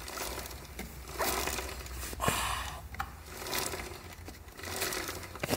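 Kawasaki Z650 rear wheel spun by hand on a stand, its drive chain running over the rear sprocket with a whirring, scraping sound that swells and fades every second or so, with a few light clicks.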